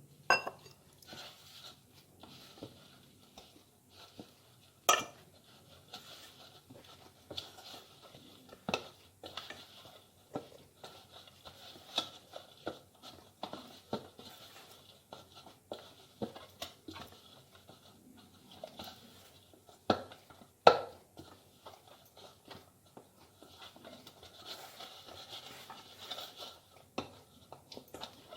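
Hands kneading stiff poori dough in a bowl: soft squishing and slapping with scattered knocks and clinks against the bowl, the loudest about five seconds in and again about twenty-one seconds in.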